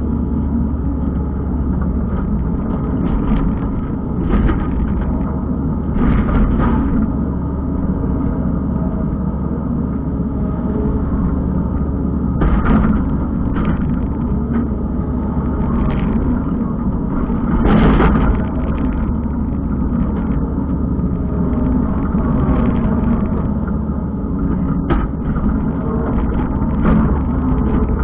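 Kubota skid steer's diesel engine running steadily under working load, with several brief surges in intensity.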